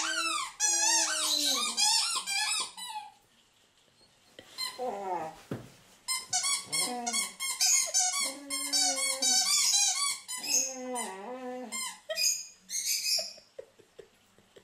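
A dog making a long run of weird squeaky, whining vocal sounds while playing with a ball. Each call slides up and down in pitch, and there is a short pause about three seconds in before the calls start again; they die away near the end.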